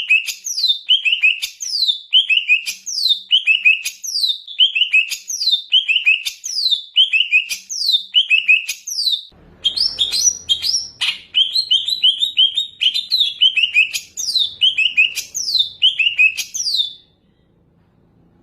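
Green leafbird (cucak ijo) singing a loud, repetitive song. About once a second it gives a falling whistle followed by a quick run of short notes. The song changes briefly about halfway, then goes back to the same repeated phrase and stops shortly before the end, leaving only a faint low hum.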